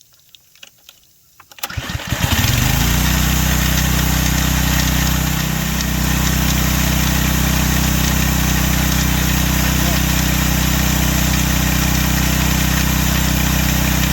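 Kohler XT7 engine on a Husky pressure washer starting: a few light clicks, then it catches about two seconds in and runs steadily. Its pump is cracked from freezing and builds no pressure.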